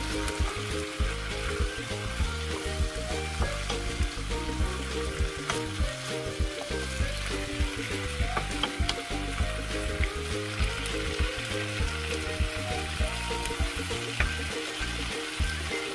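Food frying in a pan with a steady sizzle and a few sharp clicks, under background music with a steady beat.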